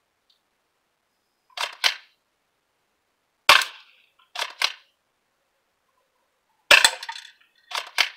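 Spring-powered pump-action airsoft shotgun, an A&K Remington M870 sawed-off replica, being cycled and fired: a quick double clack as the pump is racked back and forward, a sharp shot with a low thump, another rack, a second shot, and a third rack near the end.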